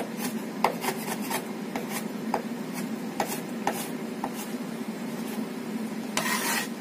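Chinese cleaver chopping Chinese sausage on a wooden chopping board: sharp, irregular knocks, about two a second, thinning out after about four seconds. Near the end there is a brief scrape on the board.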